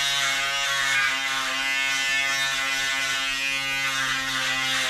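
Red cordless electric shaver buzzing steadily at an even pitch as it is run over the neck, trimming stubble.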